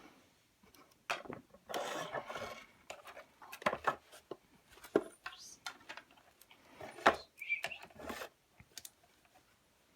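Hands handling and working apart a hair dryer's plastic housing: irregular clicks, knocks and scraping, with the sharpest click about seven seconds in.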